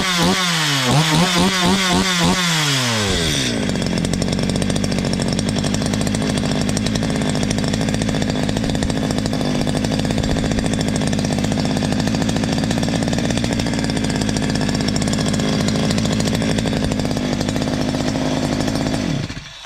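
Stihl MS 230 two-stroke chainsaw engine revved up and down in quick blips, then dropping back to a steady idle that runs until the engine is shut off near the end. It runs normally, its loose muffler freshly tightened.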